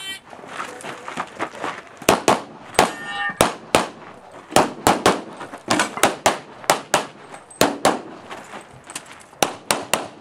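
A shot timer beeps at the start, then after about two seconds a pistol fires a long string of rapid shots in bursts of two to five, with short pauses between bursts. At least one hit sets a steel target ringing.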